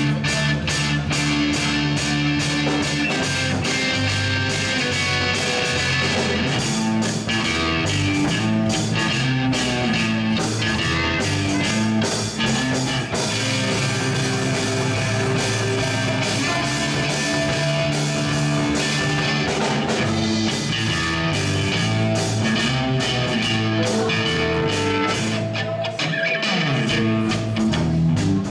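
Live rock band playing: electric guitar, electric bass and drum kit with trumpet and saxophone carrying a horn line, all amplified.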